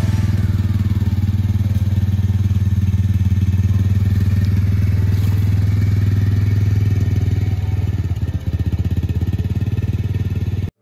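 Side-by-side utility vehicle's engine running steadily with a fast, even pulse as it drives off, easing slightly near the end.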